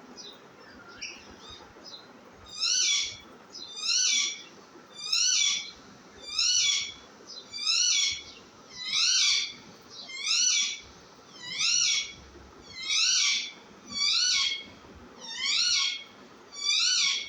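Baby parrot repeating the same high-pitched call over and over, each call rising and then falling in pitch, about one every second and a quarter, twelve in all, after a few faint chirps in the first couple of seconds.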